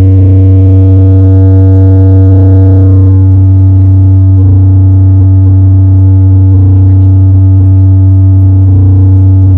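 CLA Blizzard carnival sound system blasting a sustained deep bass drone under a held synth chord that shifts a couple of times, very loud.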